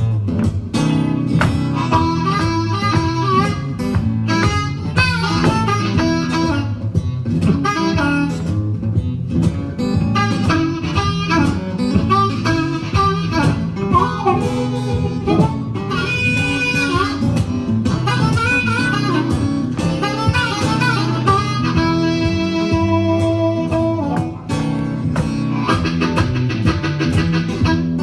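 Blues harmonica solo over an acoustic guitar accompaniment, with bending, wailing phrases. About three-quarters of the way through, one note is held for a couple of seconds.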